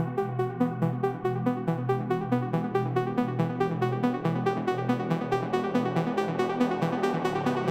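Instrumental electronic dance music with a fast, steady beat and synthesizer notes, played through a HIFIMAN Edition XV headphone and picked up by microphones at the earcups.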